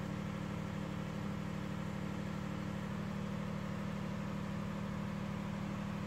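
Steady low mechanical hum with a fine, even pulse, the sound of machinery running.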